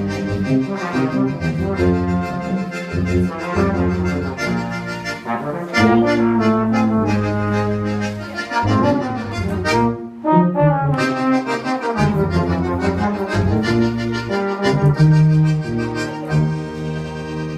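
Brass instruments, trombone-like, playing a melody in held notes, with a short break about ten seconds in.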